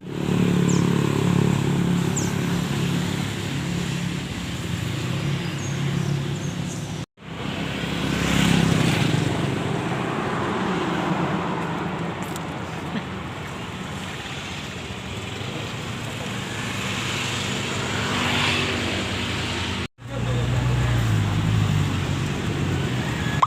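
Motorcycle engine running under a steady rush of road noise, its low hum rising and falling, with two abrupt cuts where the sound drops out for an instant.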